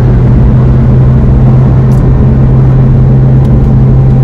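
Steady drone of a moving car heard from inside the cabin: engine and road noise with a constant low hum.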